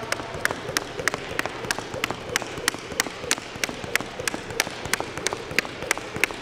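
Jump rope skipping on a hardwood gym floor: quick, evenly spaced clicks, about three a second.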